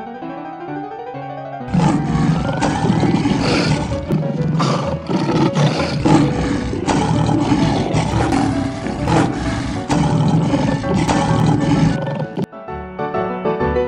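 Handheld corded leaf blower switched on about two seconds in, running loud with a rushing noise that swells and dips, then cut off sharply about two seconds before the end. Piano music plays underneath.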